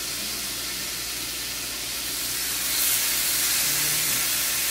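Bacon sizzling in a hot nonstick frying pan: a steady high hiss that grows louder about three seconds in, as a second raw strip is laid in the pan.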